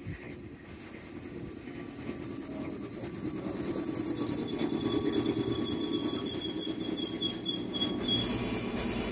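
Meitetsu 6000 series electric train pulling into a station, its wheels and running gear rumbling louder as the cars pass close by. A thin high squeal holds for a few seconds from about four seconds in.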